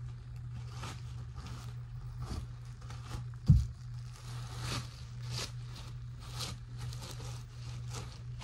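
Plastic trash bag rustling and crinkling as it is shaken open and handled, with one dull thump about three and a half seconds in. A steady low hum runs underneath.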